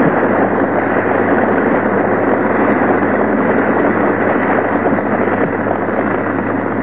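A large audience applauding at length, heard as a dense, muffled roar of clapping on an old, low-fidelity recording with a steady low hum beneath it.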